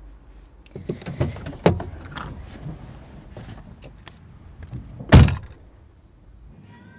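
Car interior with a low steady rumble and a few small clicks and knocks, then a car door shut with one heavy thump about five seconds in.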